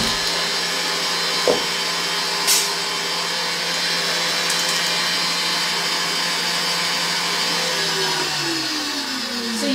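Electric stand mixer with a whisk attachment running steadily, whipping egg whites toward stiff peaks, with a couple of brief knocks early on. Near the end the motor's pitch drops as it slows.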